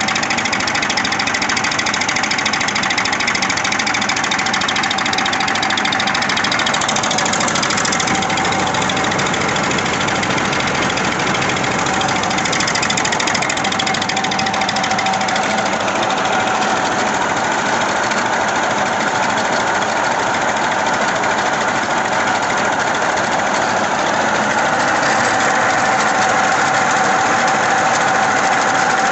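Massey Ferguson tractor's diesel engine running steadily with a fast, even knocking clatter and a steady whine over it, getting slightly louder near the end.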